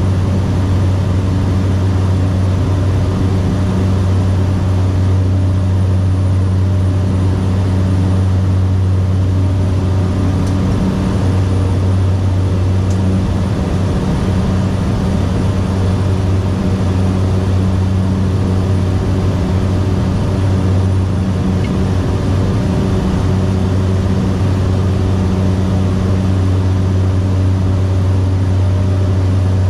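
Cessna 208B Caravan's single Pratt & Whitney PT6A turboprop and propeller droning steadily in flight, with a strong low propeller hum and no change in power.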